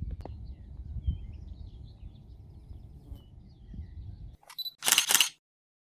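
Outdoor ambience of low wind rumble on the microphone with faint bird chirps, which cuts off after about four seconds. A few short, sharp clicks follow near the end, then the sound stops dead.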